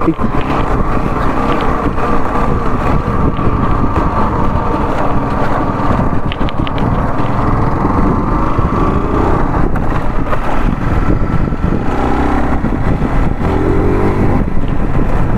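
Honda CBR150R's single-cylinder four-stroke engine running steadily as the motorcycle is ridden along a rough dirt track.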